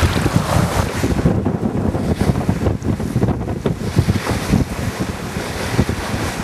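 Strong wind buffeting the microphone aboard a sailboat under way, with the wash of waves and water along the boat.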